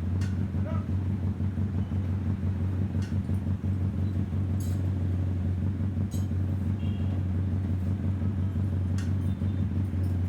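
Bajaj CT100's freshly overhauled single-cylinder four-stroke engine idling steadily, with a few faint clicks over it.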